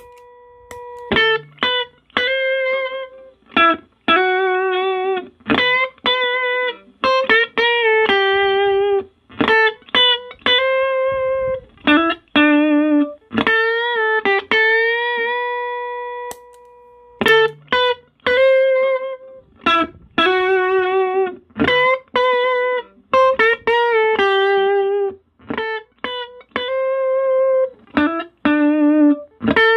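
Electric guitar, a Sterling JP60 through a Roland Cube amp and a compressor pedal, playing a single-note melodic phrase with bends, vibrato and long sustained notes. The phrase is played twice, the second pass starting after a short break about 17 seconds in.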